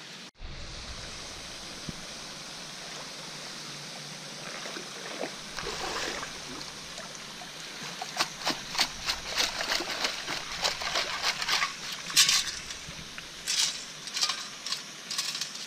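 Water sloshing and splashing as a metal sand scoop is worked through shallow water. From about halfway through come quick rattling clicks of sand and pebbles sifting in the scoop.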